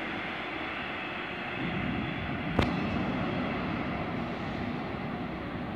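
Steady rumble of a red double-deck regional train in the station, with a single sharp click about two and a half seconds in.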